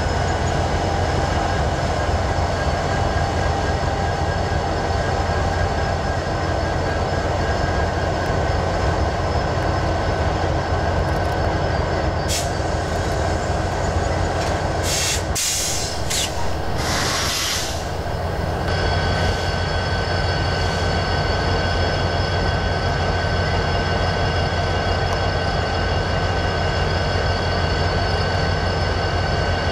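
Diesel freight locomotives running slowly past at close range, a steady low engine drone under several steady high-pitched whining tones. A few short harsh bursts of noise come about halfway through.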